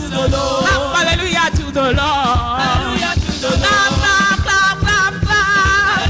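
Live gospel worship singing: a woman's lead voice into a microphone, holding long wavering notes, over band accompaniment with a steady beat.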